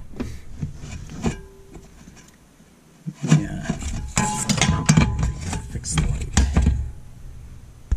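Small metal snowmobile chaincase parts (a bolt, its spring and washers) clinking and clattering as they are handled. There are a few scattered clicks at first, then a dense run of clatter from about three seconds in to nearly the end.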